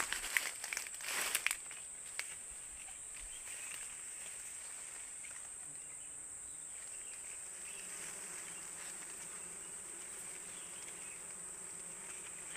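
Insects droning steadily at a high pitch, with leaves rustling and a few sharp clicks as the branches are handled in the first two seconds. A faint low hum comes in from about six seconds.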